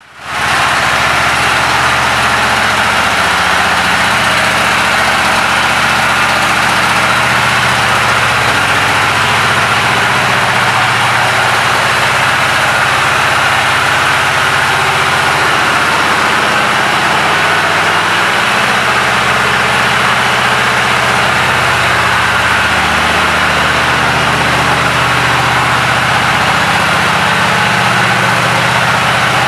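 2006 Honda VTX 1300's V-twin engine idling steadily, fading in at the start.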